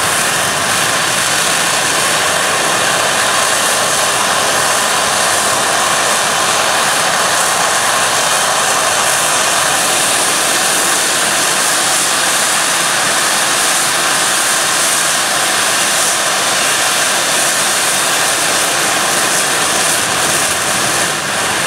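Boiler blowdown on a Farquhar overtype engine's riveted steam boiler: steam and hot water blasting out of the valve at the base of the boiler as a loud, steady hissing rush.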